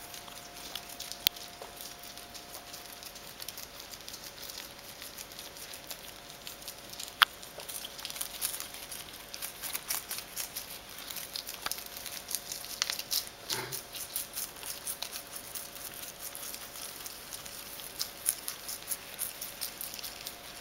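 Guinea pigs nibbling and crunching lettuce leaves: quick crisp chewing clicks that grow busier about eight seconds in, with a couple of sharper single clicks. A faint steady hum runs underneath.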